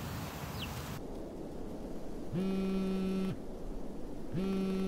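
A mobile phone vibrating with an incoming call: two buzzes, each about a second long with about a second between them, each sliding up in pitch as it starts and down as it stops.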